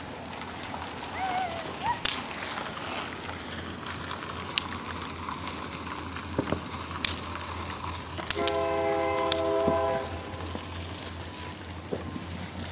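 Snap pops (bang snaps) cracking on the ground about five times, sharp and short, the loudest about 2 and 7 seconds in. About 8 seconds in, a horn sounds a steady multi-note chord for about a second and a half over a faint low rumble.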